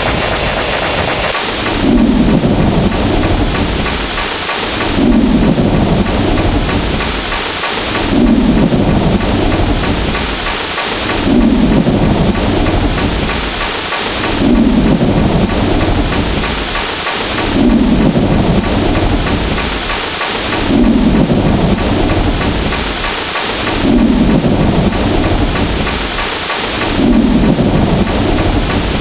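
Thunderstorm sound effect: a steady hiss of rain with a low rumble of thunder swelling and fading about every three seconds, the same short clip looping over and over.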